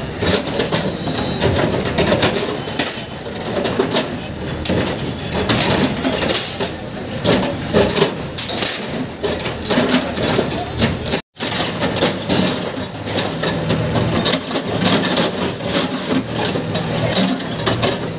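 JCB backhoe loader breaking down a brick-and-concrete shop front with its bucket: irregular knocks and crashes of masonry and falling rubble over the machine's diesel engine running.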